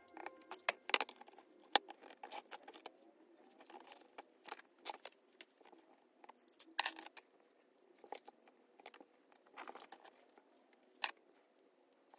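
Clear plastic pocket pages and card photo sheets being handled on a desk: irregular crinkling, sliding rustles and light clicks and taps as signed photo cards are slipped into the sleeves.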